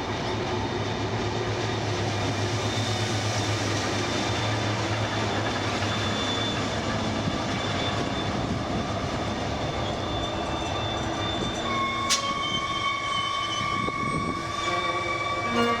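Train running on the rails, a steady rumble and hum. About twelve seconds in there is a sharp click, and a high, steady whine of several tones sets in over the rumble.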